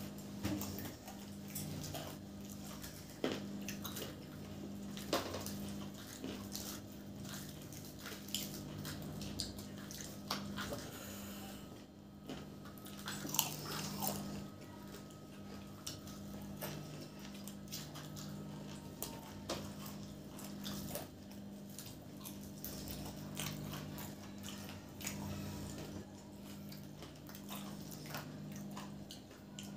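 Biting and chewing of potato samosas dipped in tamarind chutney, with scattered short crunches of the fried pastry, over a low steady hum.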